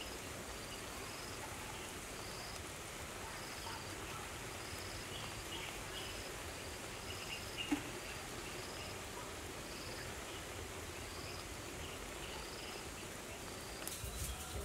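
Outdoor insect chirping: a short high chirp repeating a little more than once a second over a steady background hiss, with a single sharp click about eight seconds in.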